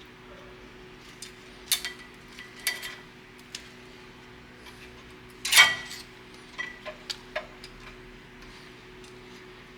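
Metal tools and brake parts being handled: a scattered series of sharp metallic clinks and taps, the loudest about five and a half seconds in, over a faint steady hum.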